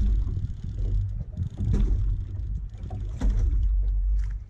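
Wind buffeting the microphone on a small boat at sea, a gusty low rumble, with a few sharp knocks near the middle and end as the angler works his rod and reel.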